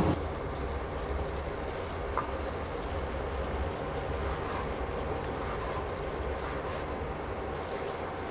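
Fresh short mackerel cooking in curry sauce in a frying pan, a steady low simmer, with a single light tap about two seconds in.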